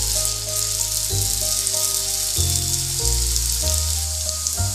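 Achappam (rose cookie) batter deep-frying in hot oil, a steady sizzle, with background music over it whose bass notes change every second or so.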